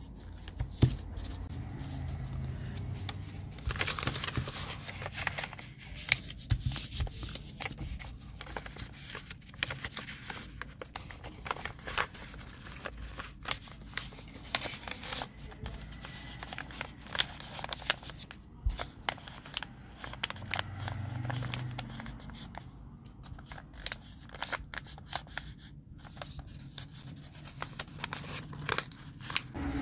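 A sheet of paper being folded and creased by hand: irregular crinkles, rustles and short rubbing strokes as the folds are pressed flat against a hard floor.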